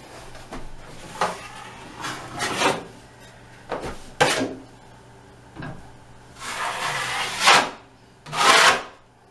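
Wide metal taping knife scraping joint compound over a plaster wall and across its pan: a series of rasping scrapes, the two near the end longest and loudest.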